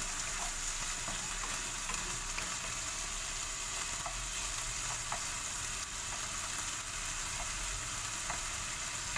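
Pieces of boneless chicken breast sizzling in olive oil in a nonstick frying pan while being stirred with a wooden spatula: a steady frying hiss with a few faint ticks of the spatula against the pan.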